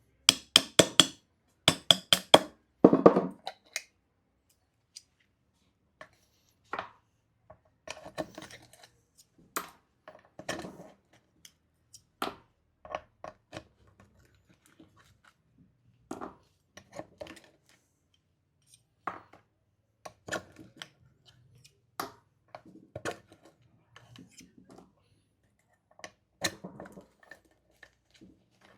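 A sharp metal tool knocking and scraping against the steel rotor ring of an electric scooter hub motor as the old magnets are pried off, with metallic clinks. A quick run of loud strikes comes in the first few seconds, then scattered knocks and clicks.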